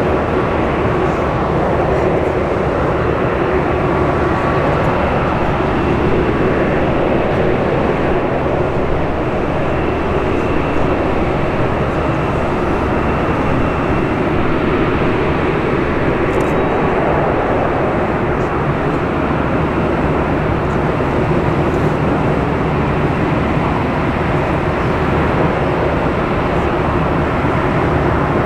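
Jet engines of an Airbus A380 running, a loud, steady rumble and roar.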